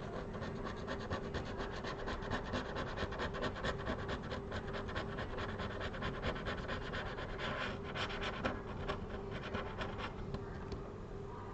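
Quick, repeated scraping strokes of a hand tool working old screen adhesive off the frame of an iPad Air 11 (2024), over a faint steady hum.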